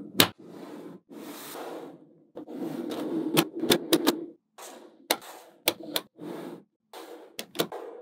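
Small magnetic balls snapping together with sharp clicks, several in quick runs, with stretches of softer scraping noise between them as the balls are pushed and slid into place.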